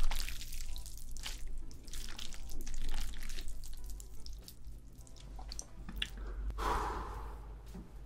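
Chopsticks stirring and lifting sticky, sauce-coated Chapagetti black-bean noodles on a ceramic plate: wet squelching with many small, irregular clicks and smacks.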